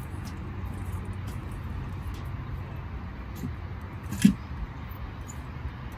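Metal wheelchair frame being shifted across inside a car, with faint clicks and one sharp knock about four seconds in as it is set down, over a steady low rumble.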